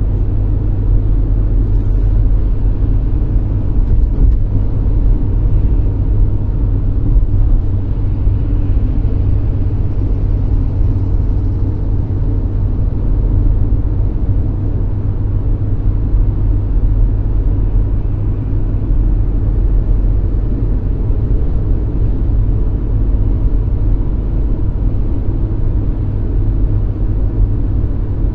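Steady low rumble of a car driving at speed on a wet motorway, heard inside the cabin: engine and tyre noise on wet tarmac.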